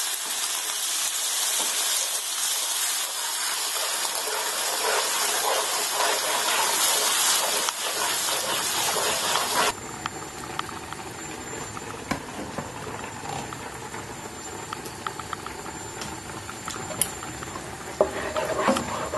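Red Thai curry paste and thick coconut milk sizzling in a hot frying pan with a loud, steady hiss. About ten seconds in the hiss drops away suddenly to a quieter simmer, with a spatula scraping and clicking against the pan as more coconut milk is stirred in.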